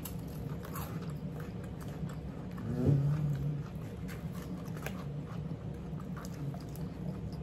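Close-up chewing and biting of food, with scattered small crisp clicks as a cracker and salad are eaten. A short hummed "mm" about three seconds in.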